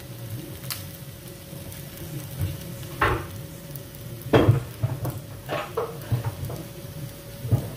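Chicken pieces sizzling gently in a pan over a steady low hum, with a few sharp knocks and clatters of a utensil against the pan, the loudest about four seconds in.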